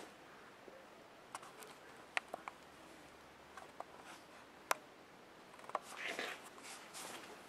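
Scattered light clicks and taps of a handheld camcorder being moved, with a short scuffle of footsteps on a concrete garage floor near the end.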